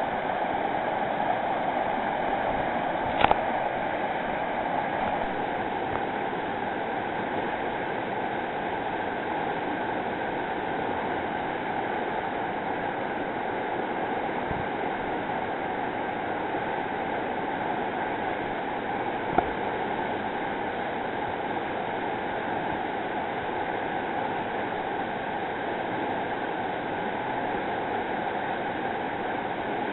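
River rapids rushing steadily, with two brief sharp knocks, one about three seconds in and another about twenty seconds in.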